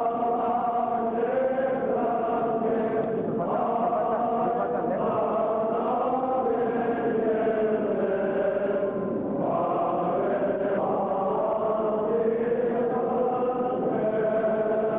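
Armenian Apostolic liturgical chant sung by a choir: long held notes that change pitch every few seconds, without a break.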